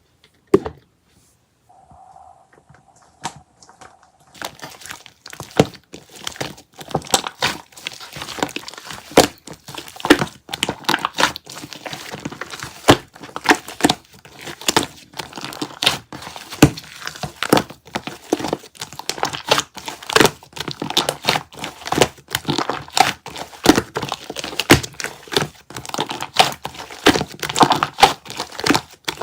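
Red transparent shaving-foam slime being squeezed and pressed by hand, giving dense, fast crackling and popping clicks. It starts about four seconds in, after a few isolated clicks.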